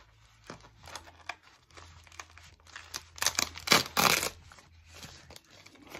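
Packing tape being pulled off the roll, with two loud rips about three to four seconds in, amid small clicks and rustling from handling the package.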